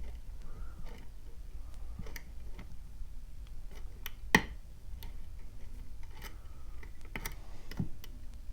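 Lock pick working the pins of a pin-tumbler challenge lock: faint, irregular small clicks and ticks as the pins are probed, with one sharper click about four seconds in.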